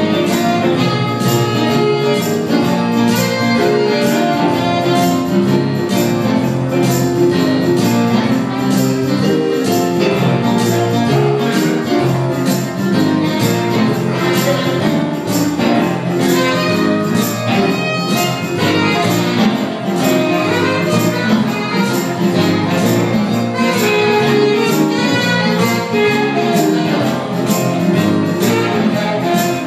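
Live band playing dance music, with electric guitars and saxophone over a steady beat.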